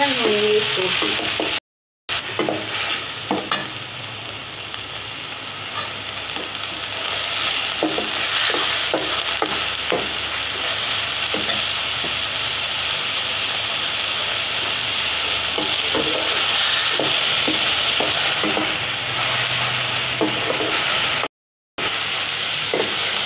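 Grated onion with garlic and green chilli sizzling in hot oil and ghee in a steel kadhai, stirred with a perforated steel skimmer that scrapes and clicks against the pan now and then. The sound drops out briefly twice, near the start and near the end.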